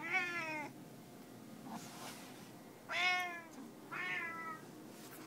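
A domestic cat meowing three times, each meow short and falling in pitch: one at the start, then two close together about three and four seconds in.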